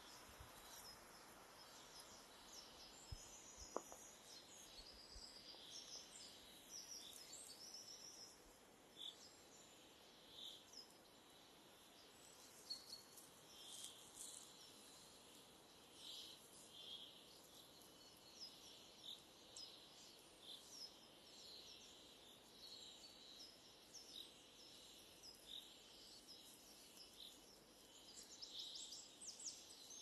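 Faint songbird chorus in a spring forest: many short high chirps and trills from several small birds over a soft hiss of forest air. A single sharp click about four seconds in.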